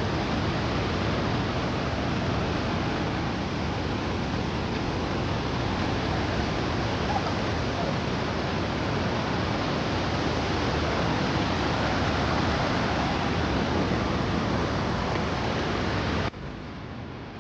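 Steady rushing water of a waterfall, an even hiss-like rush with no break, which drops suddenly to a quieter rush about a second before the end.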